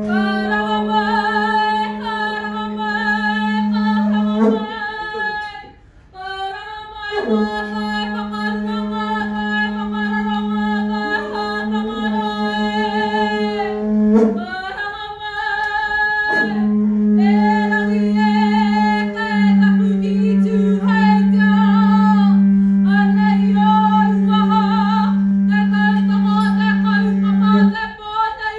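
Māori kapa haka group singing in unison without accompaniment: long held phrases on an almost level pitch with small wavering ornaments, broken by short pauses for breath several times.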